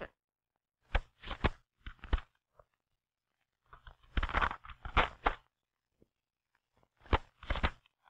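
Sheets of paper being fed into a typewriter and turned in on the platen: paper rustling with the clicking of the platen and paper bale. It comes in separate bursts: a few sharp clicks just after the start, a longer rustle and clatter about four seconds in, and two more clicks near the end.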